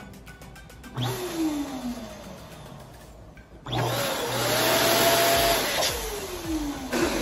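Twin-nozzle electric balloon inflator pump running in two bursts, a short one and then a longer one, as it fills two latex balloons at once. The motor's tone slides down in pitch during each burst.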